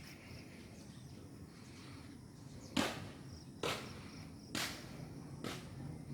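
Footsteps: four sharp steps about a second apart in the second half, over a faint steady background.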